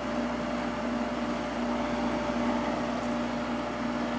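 Quiet Cool window air conditioner running on high fan speed with its compressor on: a steady hum with a low tone and a higher tone over even fan rush.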